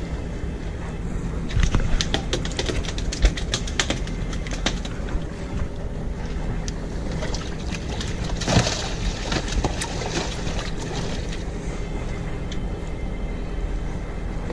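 A boat engine idles steadily. About two to four seconds in there is a run of sharp clicks and knocks, and a short clattering burst comes about eight and a half seconds in.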